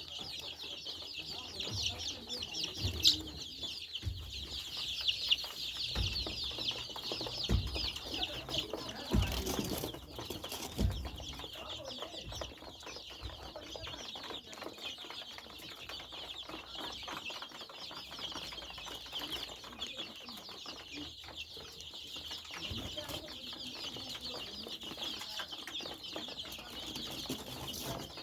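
A large flock of young chicks peeping together, a dense, steady high-pitched chirping chorus. A few dull low thumps come in the first ten seconds or so.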